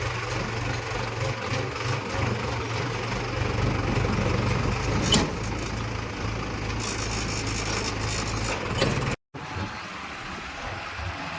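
Heavy diesel engine running steadily with a low hum, with a single sharp knock about five seconds in. The sound drops out completely for a moment a little past nine seconds, and the low engine hum is weaker after that.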